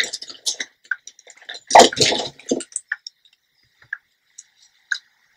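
Hair being handled and pinned up close to the microphone: scattered small clicks of a hair clip and fingers, with a louder rustle about two seconds in.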